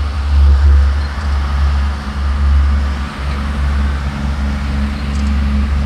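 Passenger boat's engine droning steadily, low and unbroken, with a rush of wind and water over it.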